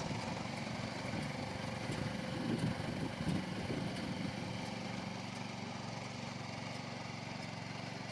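Engine of a small tractor-and-baler rig running steadily while baling freshly cut grass.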